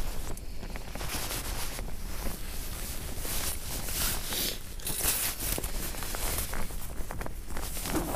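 Irregular crunching and rustling: footsteps in packed snow and stiff winter clothing shifting as someone settles down at an ice-fishing hole.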